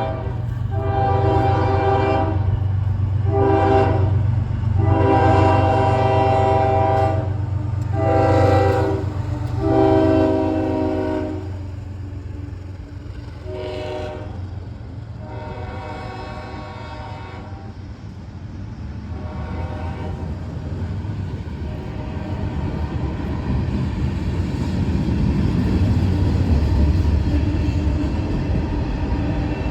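Southbound CSX diesel locomotive blowing its multi-note horn in a string of long and short blasts for about the first half, then a few shorter blasts. Under it runs the heavy low rumble of the approaching train, which grows louder again near the end as the train draws close and passes.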